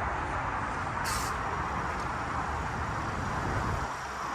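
Steady rumble of road vehicles and traffic, with a short high hiss about a second in.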